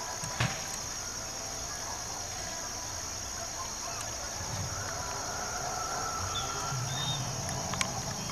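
Steady, high-pitched drone of an insect chorus, with a sharp click about half a second in and another near the end.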